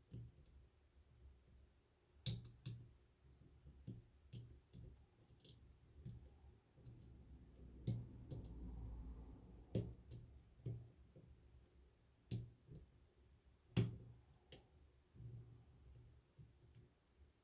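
Quiet, irregular clicks and taps of a lock pick and tension wrench working the pins of a six-pin closed-shackle padlock, with a brief low rumble of handling about halfway through.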